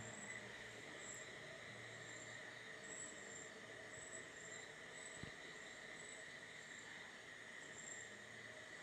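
Faint insect chirping, like crickets: short high chirps repeating about twice a second over a steady low hiss.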